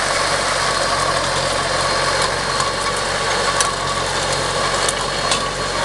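Tractor engine running steadily while a front-mounted Cucchi ESA 50 inter-row rotary harrow works the soil between the vines, with a few sharp clicks.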